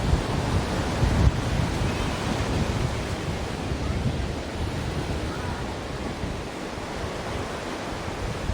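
Ocean surf: a steady rush of waves, heavier at first and easing a little in the second half.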